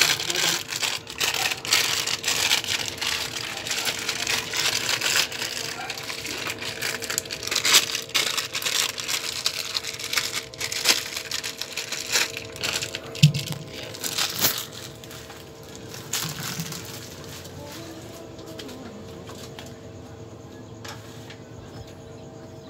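Handling noise: rustling and crinkling with many sharp clicks and taps for about fifteen seconds, then dying down to a quiet steady hum.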